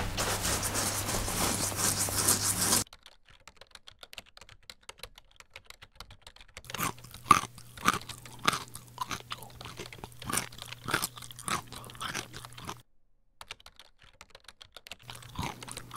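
A loud rush of hiss-like noise for about three seconds that cuts off suddenly, then a run of sharp, irregular crunches like chewing, with a few more near the end.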